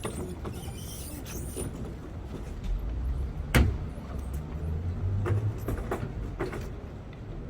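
Knocks and clatter of work on equipment over a low steady rumble, with one sharp loud bang about halfway through and a few more knocks after it.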